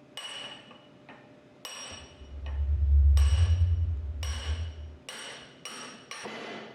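Hammer blows on a shaft driver knocking the drive gear out of a 400 series pump housing: sharp metal strikes about once a second, each with a short ringing tone. A loud low hum runs under the middle few seconds.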